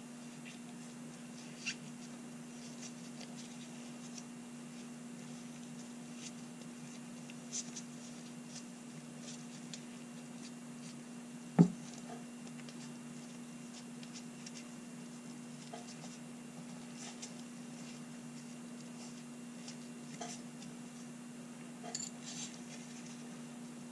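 Faint scratching of an abrasive pad rubbed over small blued steel revolver parts between bluing coats, with a few light clicks as parts are picked up and set down. One sharp knock about halfway through is the loudest sound, over a steady low hum.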